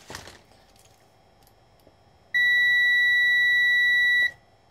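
Mestek DM91 multimeter's continuity buzzer giving one steady, high-pitched beep about two seconds long, starting a couple of seconds in. It signals continuity between the live pin of the mains plug and the wire that the meter's live test had picked out as hot.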